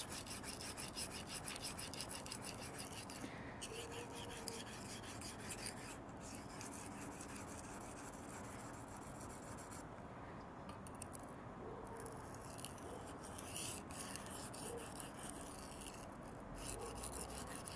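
A very hard CPM 10V steel knife edge stroked back and forth on a wet 240-grit black silicon carbide sharpening stone: faint rhythmic scraping in runs of quick strokes broken by short pauses.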